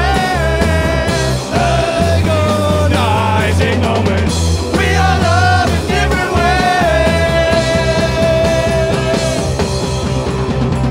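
Rock band playing live: a lead melody of long held notes with pitch bends over a steady bass line and drums.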